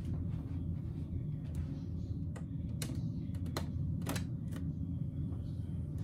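Light, irregular clicks and taps of hands working a Brother Luminaire sewing machine's power switch and automatic threading button as it is switched off and restarted, over a steady low hum.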